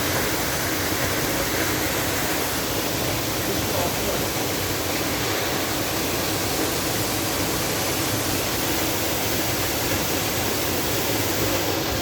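Düden Waterfall's water pouring down, a steady rushing noise, heard from the cave behind the falls.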